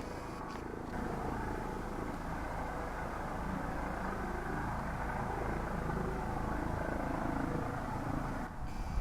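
Helicopter running steadily, a continuous low rotor and engine noise.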